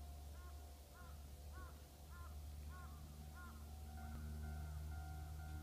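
Railway level-crossing warning bell ringing with even, regular strokes, about one and a half a second. A steady hum with a high tone joins about four seconds in.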